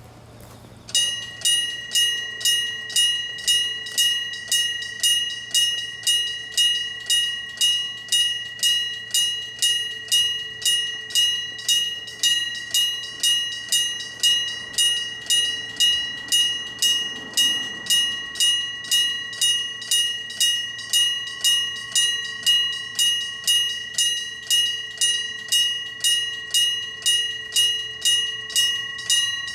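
Electric-bell level-crossing alarm (電鈴踏切) starts about a second in and rings steadily, about two strokes a second, each a bright metallic ring that dies away before the next: the crossing warning that a train is approaching.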